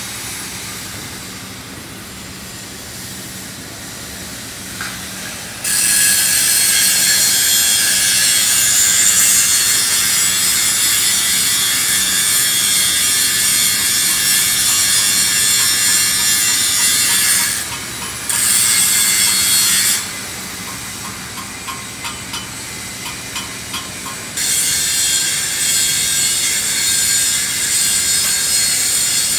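Arc welding: a loud, steady crackling hiss in three long runs, each starting and stopping abruptly, with a handful of sharp taps in the quieter gap before the last run.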